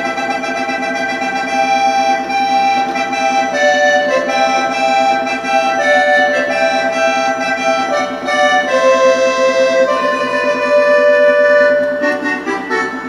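Roland D-50 synthesizer playing an accordion patch: a melody of held notes over a sustained low chord, with quicker notes near the end.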